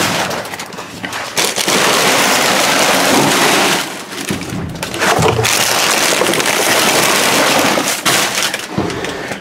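Plastic trash bags and snack wrappers rustling and crinkling close up as garbage is dug through by hand, with a couple of brief lulls.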